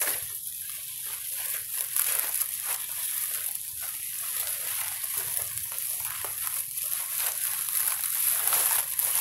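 Dry fallen leaves crackling and rustling under footsteps, an uneven run of many small crunches, over a steady high-pitched hiss.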